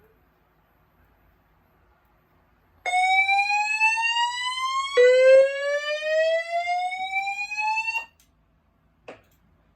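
Fire alarm voice-evacuation speaker sounding its whoop evacuation tone: a harsh, loud tone that sweeps upward in pitch twice, the second sweep starting lower and rising for about three seconds, then cutting off suddenly. A single brief knock follows about a second later.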